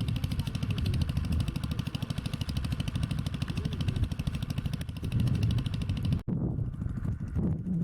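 A small engine running with a rapid, even pulse, cut off abruptly about six seconds in, after which a lower rumble continues.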